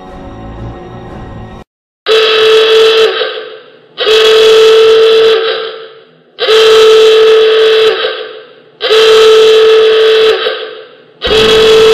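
A horn giving five long, loud, steady blasts at an even pace, about one every two and a half seconds. A short stretch of music plays just before and cuts off.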